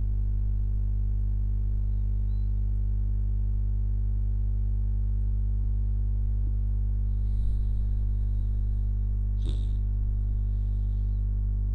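Steady low electronic drone made of several held tones stacked together, with a faint brief chirp near the end.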